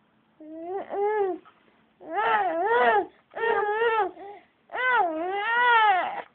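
Baby fussing in about four short, whiny cries in a row, each swooping up and down in pitch: the grumbling of a baby annoyed by the sniffles of a cold.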